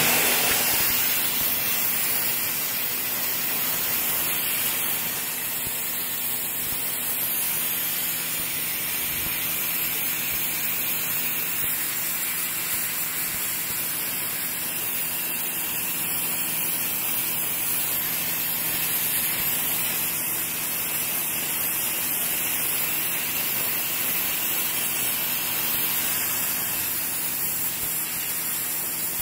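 Sun Joe SPX3000 electric pressure washer spraying a steady high-pressure jet of water through its 15-degree nozzle onto concrete, with a faint steady motor hum underneath.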